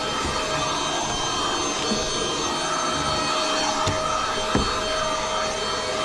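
ZISIZ cordless stick vacuum running steadily with a high motor whine while its brush head is worked over carpeted stair treads. A couple of short knocks come through, about two seconds in and again past four seconds.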